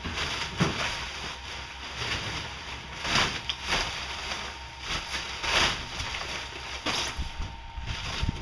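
Plastic stretch wrap rustling and crinkling in repeated short swishes as it is pulled off and bundled up from a wooden crate, over a steady low hum.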